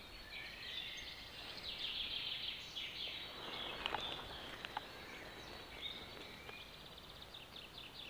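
Several songbirds singing at a distance in a still woodland: faint overlapping chirps and short high trills, with no wind. Two faint clicks sound near the middle.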